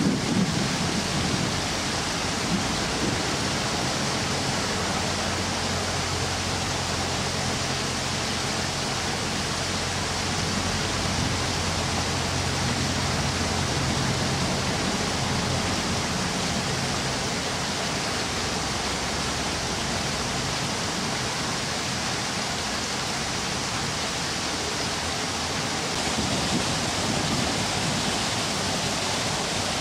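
Steady rushing noise of wind outdoors, even and unbroken, with a faint low hum through the first half.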